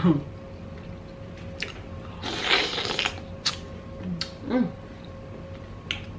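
Close-miked handling of a saucy giant prawn: a wet squishing stretch as it comes out of the butter sauce, then a few sharp clicks and crackles of shell as it is pulled apart. A short hummed vocal sound falls in pitch about halfway through.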